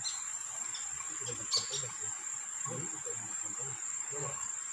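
Steady high-pitched insect drone, a single unbroken tone like crickets or cicadas in riverside vegetation, with a brief sharp click about one and a half seconds in.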